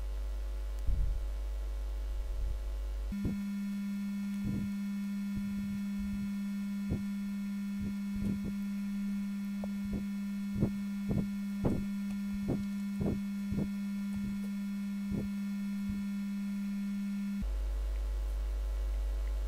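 Steady low electronic buzz with many overtones and irregular short clicks. It switches on abruptly about three seconds in and cuts off abruptly about two seconds before the end, leaving a faint low hum.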